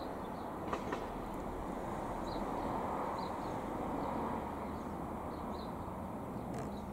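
Distant, steady jet roar of a high-flying Boeing 747-400 freighter's four engines, heard from indoors through a window, swelling slightly midway. A few faint clicks come about a second in and near the end.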